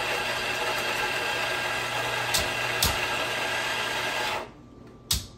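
Electric coffee grinder running steadily, grinding beans into the espresso portafilter basket, then cutting off abruptly about four and a half seconds in. A single sharp knock follows just after it stops.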